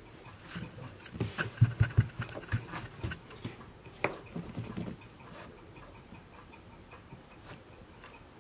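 Light taps, knocks and scuffs from cats shifting on a cardboard box and a fluffy string toy moving over a wooden floor, bunched in the first five seconds and then dying down.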